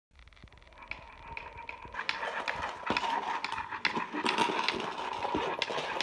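A ladybird push toy on a stick rolled over a laminate floor, its wheels and body rattling with a rapid, irregular clatter of clicks that grows louder about a second in.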